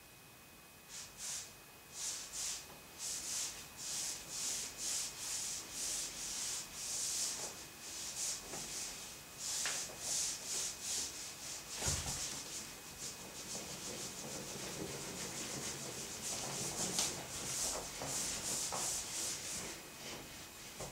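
Repeated hissing rubbing strokes, roughly one to two a second, starting about a second in, with a single sharp knock about halfway through.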